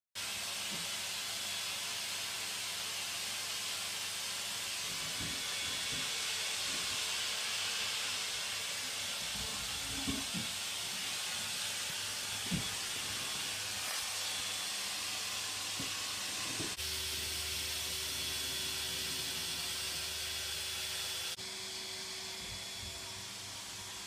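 Vacuum cleaner running, a steady hissing whoosh with a faint high whine. There are two light knocks a little before halfway. A low hum joins for a few seconds about two-thirds in, and near the end the sound drops a little in level.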